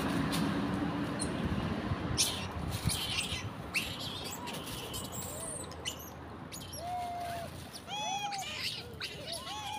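Macaques giving short, arched, squeaky coo calls, several in a row from about seven seconds in. Earlier, a passing vehicle's rumble fades away and a few brief scuffs are heard.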